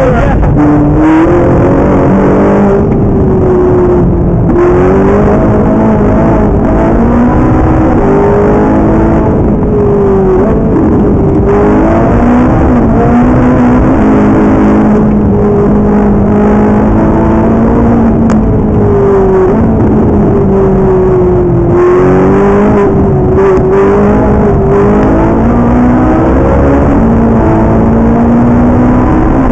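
Ferrari 458 Italia's V8 engine driven hard, heard from inside the cabin: loud, its note climbing and falling over and over as the car accelerates, lifts and brakes around the track.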